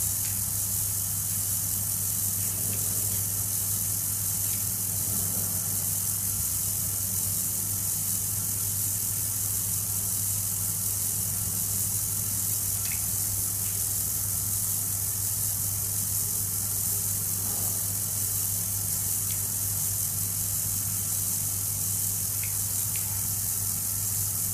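Micro hobby servo running continuously, a steady whir with a low hum and hiss underneath, as the tracker board drives it round in one direction. A few faint ticks come in the middle and near the end.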